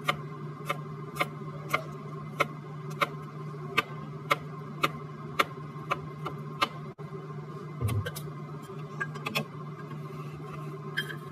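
Chef's knife chopping garlic on a plastic cutting board: even knocks of the blade on the board about twice a second. After a short break there is a dull thump, then a few lighter knocks as things are set down on the board. A steady low hum runs underneath.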